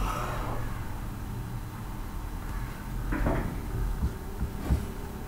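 Room tone: a low steady hum with a few soft knocks, about three seconds in and again near the end.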